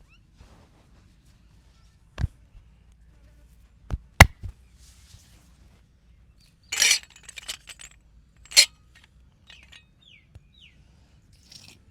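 Hands massaging an ear: a few sharp slaps or snaps, the loudest about four seconds in, and short bursts of rubbing around seven and eight and a half seconds in.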